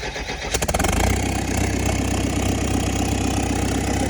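JCB 448 four-cylinder diesel engine of a JS220 excavator being cranked and catching about half a second in, then settling into a steady run. It starts again after its injectors have been cleaned and refitted to cure a no-start.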